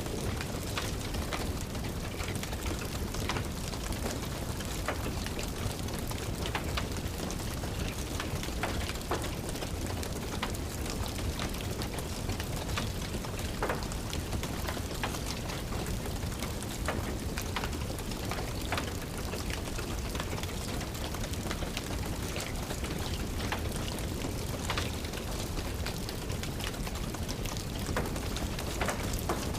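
Steady rain with scattered sharp crackles from a wood fire in a fireplace.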